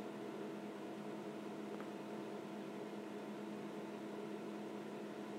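Steady low electrical hum over faint hiss: the room tone of a small room, unchanging throughout.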